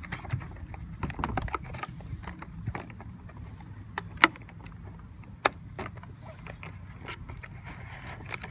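Model train box and packaging being handled during unboxing: scattered light clicks and taps, with two sharper clicks about four and five and a half seconds in, over a steady low hum.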